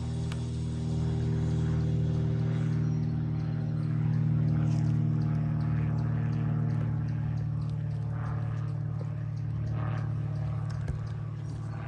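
Steady low engine drone from nearby farm machinery, with faint scattered clicks over it.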